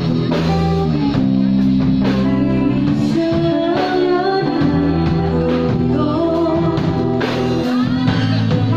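Live band playing through a PA with a woman singing lead into a microphone, backed by electric bass, drums, electric guitar and keyboard. Sustained bass notes and the sung melody run on without a break.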